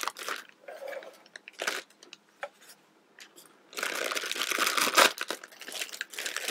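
Plastic parts bag of a toy building kit being torn open and crinkled by hand: scattered crackles, a short lull in the middle, then steady crinkling through the second half.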